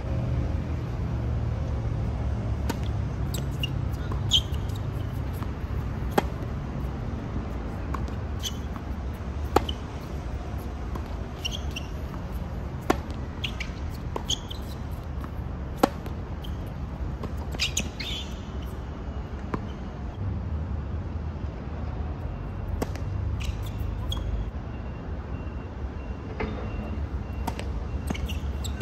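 Tennis ball hit back and forth in a rally on a hard court: sharp pops of the ball off the racket strings every two to three seconds, with softer bounce knocks between them. Birds chirp now and then over a steady low rumble.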